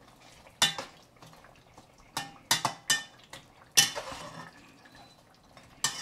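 Slotted metal spatula scraping and clanking against the side of a metal cooking pot while stirring a thick meat curry, in irregular strokes. There are about seven sharp clacks, the loudest nearly four seconds in.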